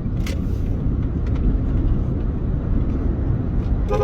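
Steady low rumble of a truck driving at speed, road and wind noise. A car horn starts sounding right at the very end.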